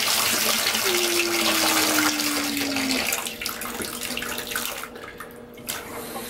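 Bathtub tap running, water pouring and splashing into the tub. The rush thins out after about three seconds and nearly stops around five seconds in. In the first half a single steady whine slowly falls in pitch for about two seconds.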